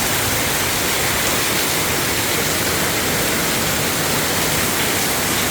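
Heavy rain pouring down in a steady, loud hiss with no breaks.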